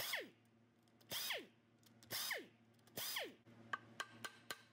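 Cordless power tool spinning a socket in four short trigger pulls about a second apart, its motor winding down in pitch after each, as the cylinder head bolts are run out. A few light metallic clicks follow near the end.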